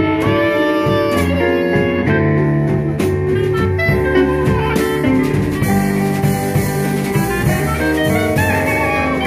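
Small jazz band playing live, a clarinet carrying the melody over trombone and electric keyboard.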